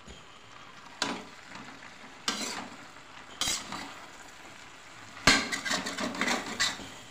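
Metal spatula scraping and stirring a finished potato curry in a kadhai over a faint steady sizzle. There are single scrapes every second or so, then a quick run of scrapes about five seconds in.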